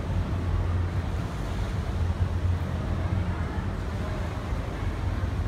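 Wind buffeting the microphone: a steady low rumble and rushing noise, over the hubbub of a busy crowd walking by.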